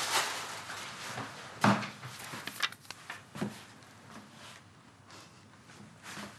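A few sharp knocks and clicks, the loudest about a second and a half in, over faint rustling.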